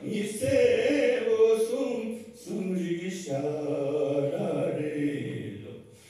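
A Ladakhi folk singer's solo male voice singing a slow, chant-like song in long held notes, with no audible accompaniment. It breaks briefly for breath about two seconds in and trails off near the end.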